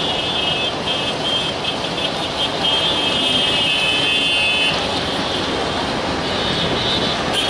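WDM-3A ALCO diesel locomotive running under load with the train, a steady heavy rumble and a high-pitched whine that flutters for the first two seconds, holds steady, then fades about five seconds in.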